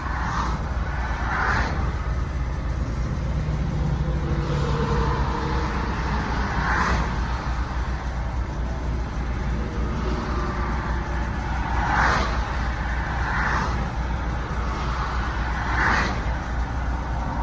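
Steady low vehicle rumble, with road traffic swishing past several times.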